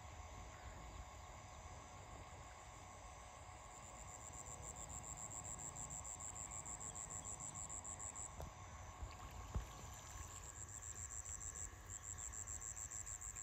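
Insects trilling, a high, rapidly pulsing trill that breaks off and starts again a couple of times, over faint steady outdoor background. A single sharp click sounds about nine and a half seconds in.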